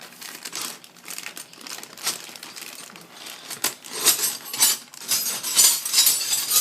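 Packaging crinkling and rustling as a wrench set is handled, growing busier and louder about four seconds in.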